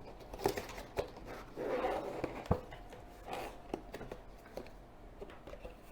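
Headphone retail box being opened by hand: clicks, taps and rustling of the cardboard and plastic packaging as the seal is broken, with one sharp knock about two and a half seconds in.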